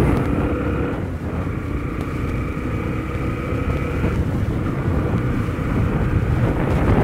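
Motorcycle engine running steadily while riding, with a low wind rumble on the microphone; the engine's tone changes about four seconds in.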